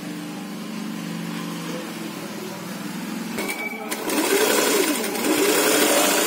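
Electric sewing machine stitching a folded edge of cotton fabric. It starts with a steady hum, breaks off briefly, then runs louder from about four seconds in, its pitch rising and falling as the speed changes.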